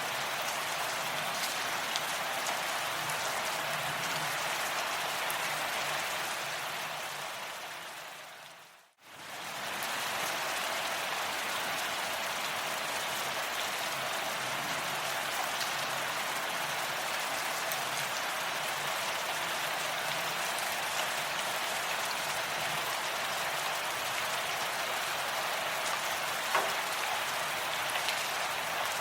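Steady rain falling, a dense even hiss of drops with scattered small ticks. About a third of the way in it fades down to near silence and swells back up within about a second, like a splice in a looped recording.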